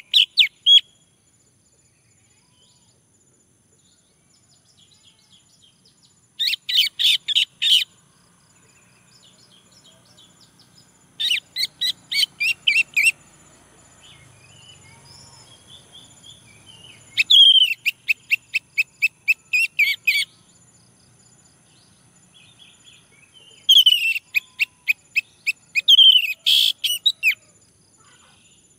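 Male orange-headed thrush singing: four phrases of quick repeated notes, each a second or two long, a few seconds apart. A faint steady high-pitched tone, like insects, runs underneath.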